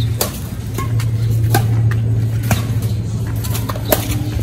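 Badminton rackets striking a shuttlecock in a rally: four sharp hits about a second apart, over a steady low hum.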